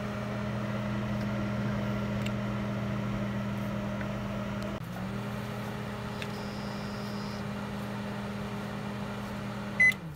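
Panasonic 1300 W inverter microwave oven running with a steady hum. The hum breaks off briefly about halfway and picks up again, then stops near the end as the cooking cycle finishes, followed by a single high beep.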